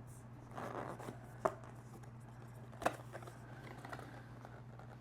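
Paper and cardboard packaging being handled: a soft rustle, then two sharp clicks about a second and a half apart and a few small ticks, over a steady low hum.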